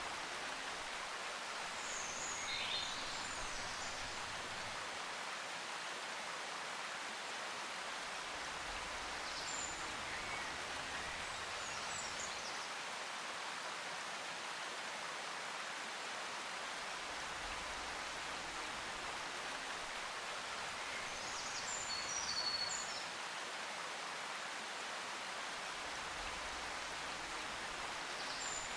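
Steady rushing of flowing water, like a stream, with a few short bird chirps now and then, the loudest about twenty-two seconds in.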